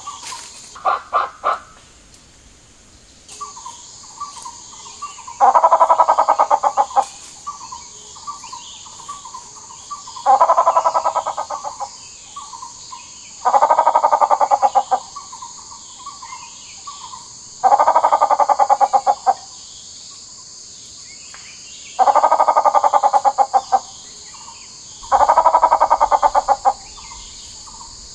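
Gray peacock-pheasant calling: six loud rattling bursts, each about a second and a half of rapid pulses, coming every three to five seconds, with softer quick clucking notes between them.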